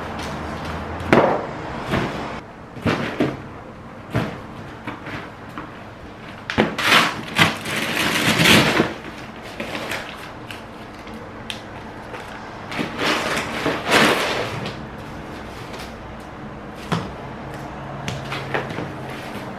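Rustling and crinkling from a foil-lined insulated delivery bag and its wrapped contents being unpacked, with louder spells of rustling partway through and again later. Several short knocks come as items are handled and set down on the wooden floor.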